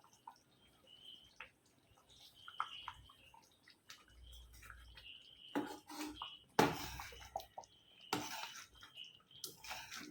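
Paneer butter masala gravy bubbling in a pan, with small pops and clicks throughout, and a few louder bursts of noise in the second half.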